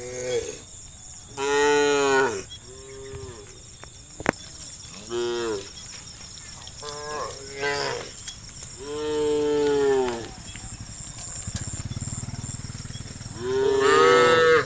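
Cows mooing one after another, about seven drawn-out calls of varying length and pitch, the longest and loudest near 2 s, around 9–10 s and just before the end. A single sharp click about four seconds in.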